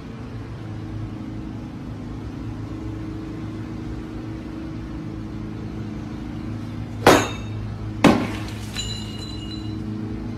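A golf club swung hard and striking with a sharp crack, followed about a second later by a second sharp hit that rings briefly with a high, clinking tone, over a steady low hum.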